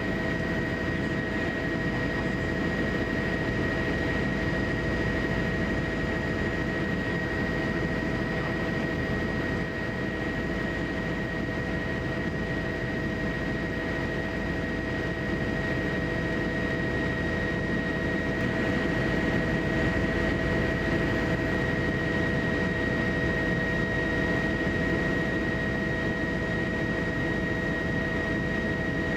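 Steady aircraft engine noise: a constant low rumble with an unchanging whine over it, swelling slightly in loudness past the middle.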